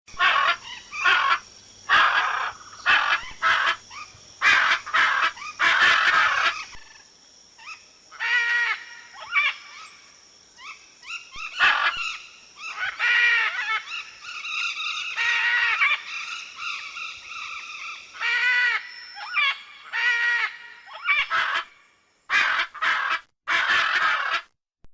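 Macaws calling with loud, harsh squawks: a dense run of rasping calls in the first several seconds, then separate, drawn-out calls that rise and fall in pitch. Near the end the calls stop abruptly twice, with brief silences between them.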